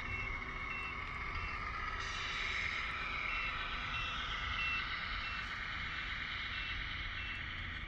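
RC semi-truck backing up with its reversing alarm beeping: short high beeps about every 0.6 s, which stop briefly between about one and a half and three seconds in. Under them runs the truck's motor sound, rising and falling in pitch.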